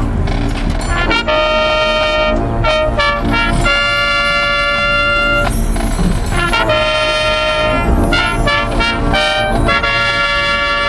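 Marching band playing a brass passage: trumpets lead with long held notes broken by short gaps, with drum hits in between.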